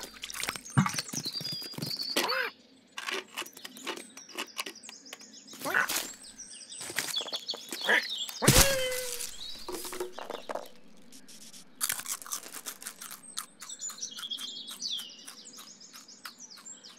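Cartoon garden sound effects: birds chirping over a run of short clicks, scrapes and rustles. A louder, sudden sound comes about eight and a half seconds in.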